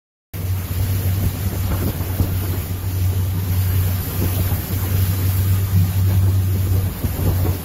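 Motorboat running under way: a steady low engine drone with wind buffeting the microphone. It cuts in suddenly just after the start.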